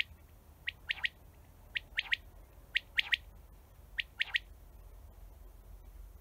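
Common quail singing its three-note 'wet-my-lips' phrase, one sharp note followed by a quick pair, repeated four times about a second apart, then falling silent about four and a half seconds in.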